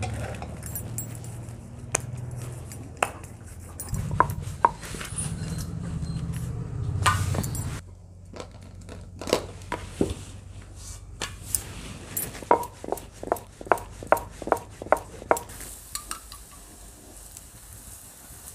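Metal spoon clinking and scraping on a griddle (tawa) as ghee is spread over a cooking paratha, with a quick run of clinks in the second half. A low steady hum runs under the first part and stops abruptly about 8 seconds in.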